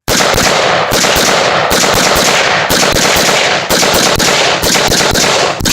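Rapid, sustained gunfire: many sharp shots packed so close that they run together into a continuous crackle, easing briefly about once a second.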